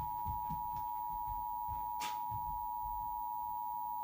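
Emergency Alert System attention signal: a steady, unbroken alarm of two tones sounded together, played through a TV's speaker to announce a tornado warning.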